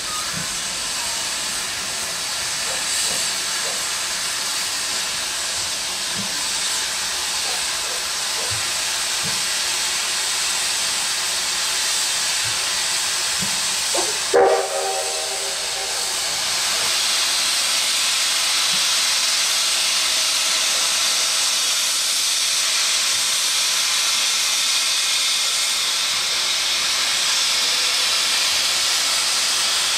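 Steam locomotive hissing steam steadily, with one short whistle toot about halfway through; the hiss grows louder a few seconds after the toot.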